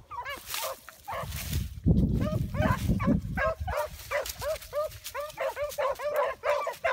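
A pack of hounds baying as they run a rabbit: a rapid, overlapping chop of short barks from several dogs, several a second, the sign of a pack on the scent. A low rumbling noise runs under the barking for a couple of seconds about two seconds in.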